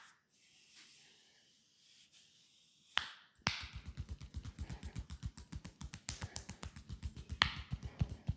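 Hands tapping rapidly on a leg in percussive massage. After a sharp click at the start and another about three seconds in, it becomes a fast, even patter of short taps, roughly ten a second.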